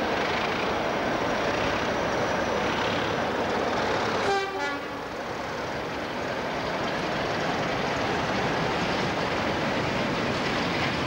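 Class 47 diesel locomotive and its train of tank wagons passing, a steady noise of engine and wheels on the rails. A short horn toot about four seconds in.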